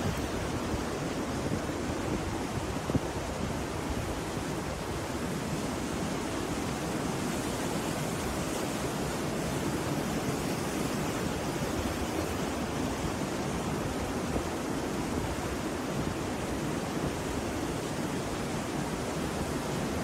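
Rough sea surf: waves breaking and washing up a beach in a steady, continuous rush with no pauses between breakers.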